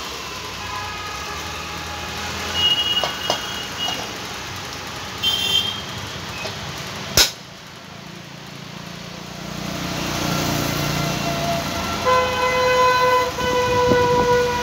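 Vehicle horns sounding with passing traffic, the longest honk held steadily over the last few seconds. A single sharp click about seven seconds in.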